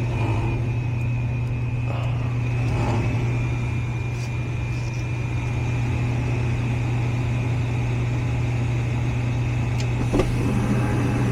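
Goodman gas furnace running through a test cycle after its burners were cleaned: a steady low motor hum with a thin high whine over it, and a sharp click about ten seconds in.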